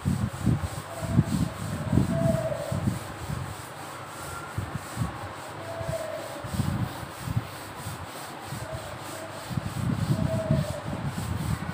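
Board duster rubbed across a chalkboard in repeated back-and-forth strokes, wiping off chalk writing.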